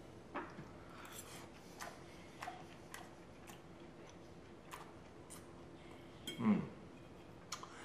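A metal fork clicking and scraping against a ceramic plate in scattered small taps while food is picked up. Near the end there is one short, low vocal sound that falls in pitch, the loudest thing heard.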